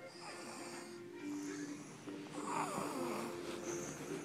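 A young child snoring in sleep, a noisy snore with each slow breath, the loudest about two and a half seconds in, over background music.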